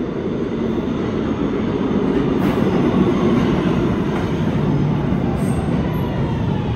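Kawasaki R211T subway train running into an underground station on steel rails: a loud, steady wheel-on-rail rumble. It grows louder over the first three seconds, then eases a little as the train comes along the platform, with a few faint clicks.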